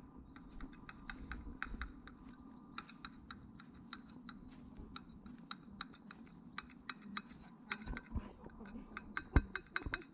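Footsteps on a dry forest floor of pine needles and twigs: a string of irregular light clicks and crackles, with a heavier thump near the end.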